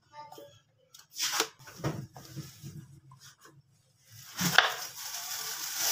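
Kitchen knife cutting peeled raw potatoes on a wooden cutting board: a few separate cuts knocking on the board about one and two seconds in, then busier cutting and scraping of slices across the board from about four and a half seconds.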